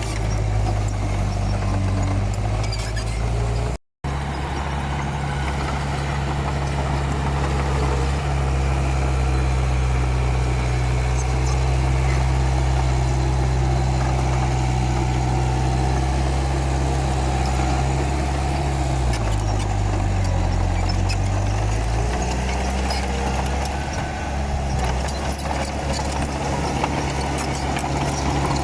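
Komatsu D31P bulldozer's diesel engine running steadily. The sound cuts out for a moment about four seconds in. About two-thirds of the way through, the engine pitch dips for a couple of seconds and then comes back up.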